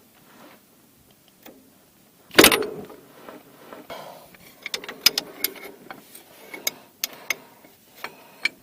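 Hand tools working on the steel hydraulic line fittings under a John Deere 410 backhoe to remove the line. One loud clank about two and a half seconds in, then a run of short, sharp clicks and taps.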